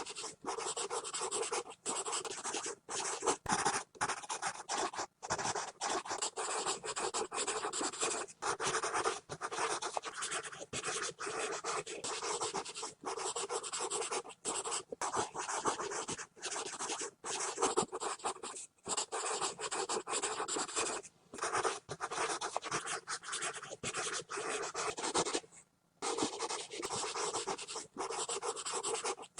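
Pencil scribbling rapidly on paper: a continuous scratchy hiss of graphite strokes, broken by frequent brief lifts of the pencil and one longer pause near the end.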